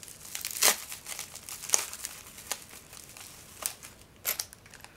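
Plastic bubble-wrap pouch crinkling in the hands as a card of stitch markers is slid out of it: irregular rustles with a few sharper crackles.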